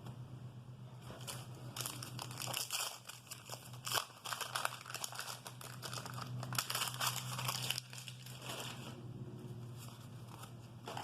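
Wax-paper wrapper of a 1988 Topps baseball card pack being torn open and crinkled, crackling irregularly for several seconds and dying down near the end, over a low steady hum.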